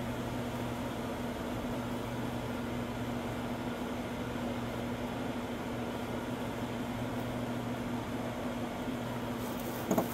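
Steady low mechanical hum, like a mains-powered fan or air-conditioning unit. Near the end, a short sharp plastic clack as a clipped-on part of the mower comes free.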